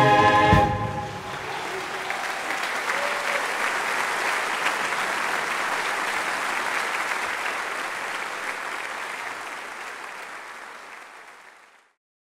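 The last chord of a sung piece ends within the first second, then an audience applauds steadily; the applause fades out gradually and is gone just before the end.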